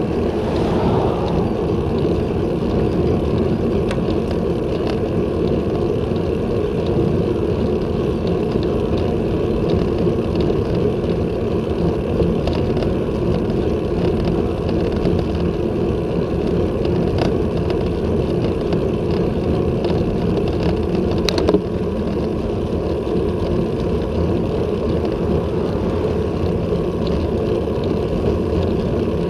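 Steady wind rumble on a handlebar-mounted action camera's microphone as the road bike rides at about 20 km/h, with one sharp click about three quarters of the way through.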